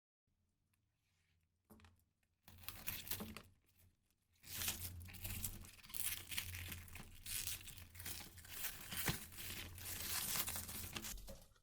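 Jet crackle firework burning: a pop and a short burst of crackling, then dense, continuous crackling for about seven seconds that cuts off suddenly.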